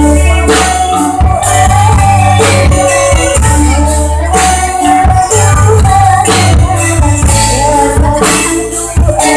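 A child singing a melody over loud, amplified band accompaniment with a heavy bass and regular percussion strokes.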